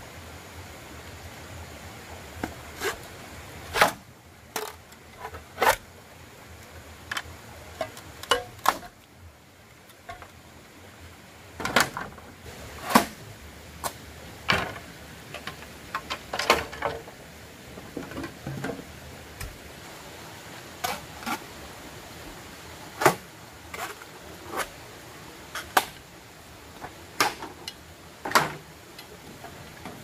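Scattered sharp knocks and clicks of wood and tools being handled, one every second or two and some in quick pairs, over a steady faint hiss.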